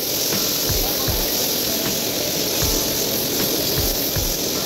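Fiddlehead ferns and diced squash sizzling as they stir-fry in a wok: a steady hiss with scattered light clicks.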